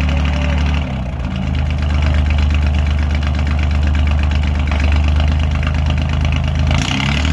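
Lifeboat's diesel engine running steadily during a test run while the boat hangs in its davits, driving its ducted propeller in the air. The engine note dips and shifts about a second in and changes again near the end.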